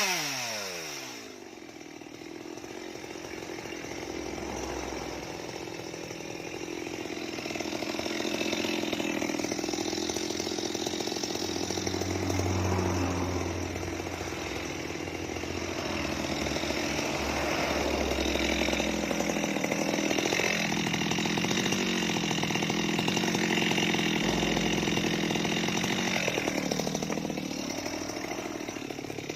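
Stihl MS 230 two-stroke chainsaw engine dropping sharply in pitch as the throttle is released from full revs at the start, then running on at a lower, wavering speed.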